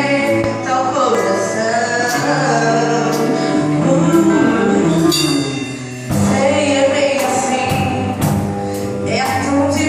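Live gospel worship music: singers with a band, the singing held on long notes and the accompaniment dropping out briefly about six seconds in.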